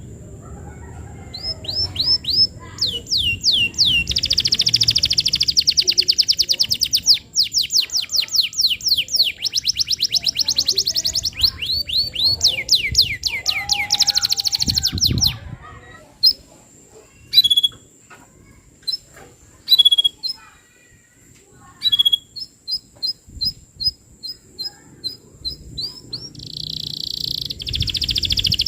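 Domestic canary singing loudly in rapid trills: runs of fast repeated downward-sweeping notes and dense rolls, thinning to scattered short chirps for about ten seconds past the middle before a fast trill starts again near the end.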